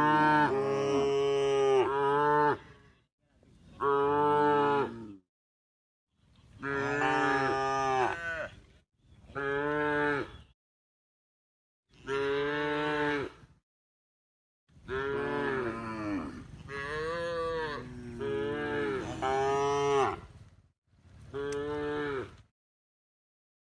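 Cows mooing over and over in long, pitched calls that bend up and down, one after another with short gaps of dead silence between them.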